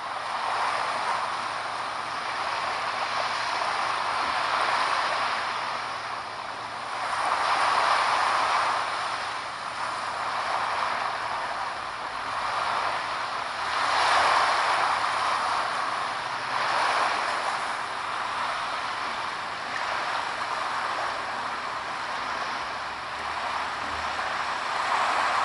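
Ocean surf: a steady rush of breaking waves that swells and eases every few seconds.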